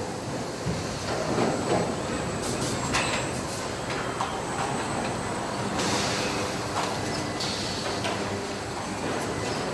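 Factory floor noise: a steady machinery hum with scattered metallic clanks and clicks, and a few short bursts of hiss.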